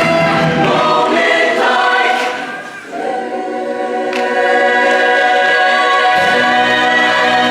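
Show choir singing in full harmony over an instrumental backing. The music drops away briefly about two and a half seconds in, then comes back on held chords, with bass notes entering near the end.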